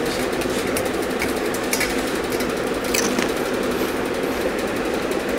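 Steady rattling drone of a small engine or motor running without change, with a few faint clicks about two and three seconds in.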